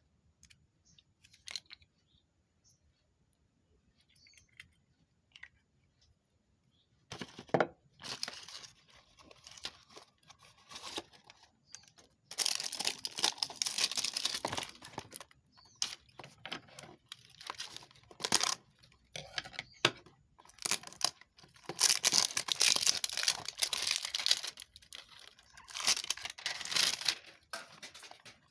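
Packaging being torn open and crinkled by hand, in irregular bursts that start about a quarter of the way in and come thickest in two long stretches later on.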